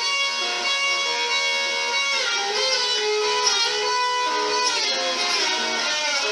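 Telecaster-style solid-body electric guitar played on its own through an amplifier, a rock line of picked notes with pitch slides, the clearest falling about two seconds in.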